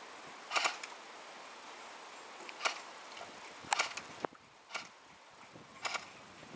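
Airsoft guns firing: about five sharp pops, some in quick doubles or triples, spaced irregularly over a steady hiss.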